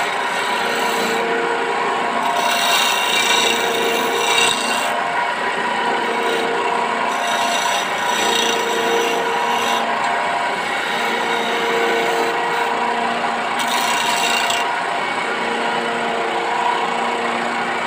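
Electric wood lathe running with a steady motor hum while a hand turning tool cuts a spinning teak table leg: scraping, rasping cuts come and go in passes, the brightest a few seconds in, around eight seconds and near fourteen seconds. Near the end the tool is off the wood and the lathe hums on alone.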